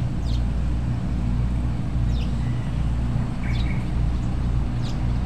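A steady low engine rumble, with short, falling bird chirps about once a second over it.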